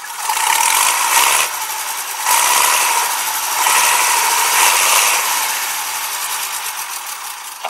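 A loud, hissy mechanical rattle with a steady whine running through it. It eases off about a second and a half in, comes back under a second later, and fades slowly near the end.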